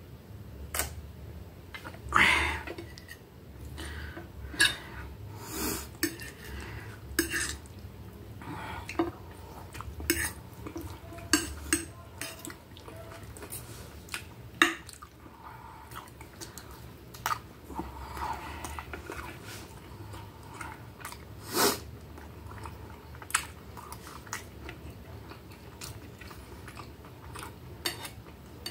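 Close-up eating sounds: chewing, with repeated sharp clinks and scrapes of a fork and knife against a plate as food is cut.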